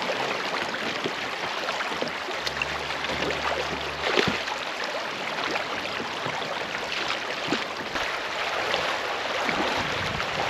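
River water rippling and splashing around a kayak: a steady rush of moving water with many small splashes and clicks, and one sharper knock about four seconds in.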